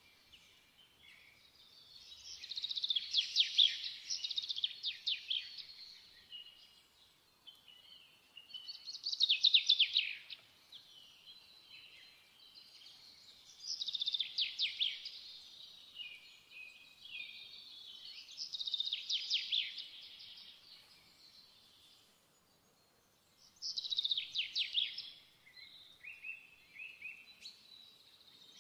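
A small songbird singing: about five trilled phrases of roughly two seconds each, one every five seconds or so, with softer twittering in between.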